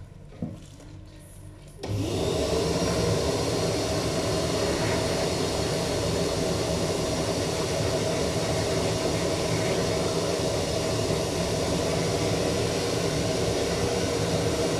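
A barbershop's ceiling-hung air hose machine switches on abruptly about two seconds in and runs with a steady, even whoosh and hum as its nozzle is passed over freshly cut hair.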